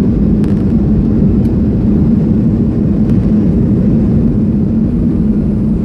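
Cabin noise of a Boeing 737-300 rolling down the runway just after touchdown: a loud, steady low rumble of engines and wheels with a steady hum and a few faint ticks.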